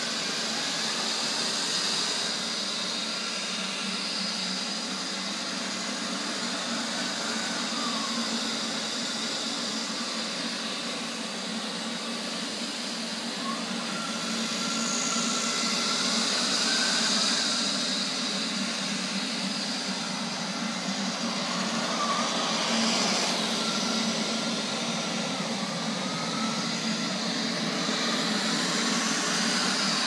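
Robot vacuum cleaner running: the steady whir of its suction fan and brushes as it drives across the floor, swelling a little now and then, with faint high tones that rise and fall at times.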